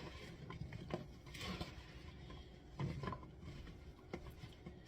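Raw green beans being mixed and tossed to coat them in oil and seasonings: irregular rustling and light clicking.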